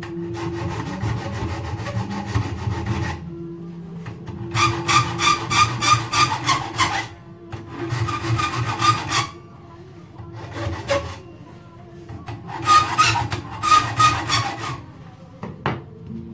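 Hand file rasping back and forth on a small metal clock part, in four bouts of quick strokes, about three strokes a second, with short pauses between bouts.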